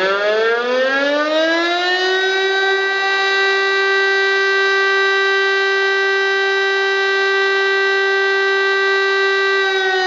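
DS 977 electromechanical siren sounding for a test: it winds up in pitch over the first two seconds or so, holds a loud steady tone, then begins to wind down near the end.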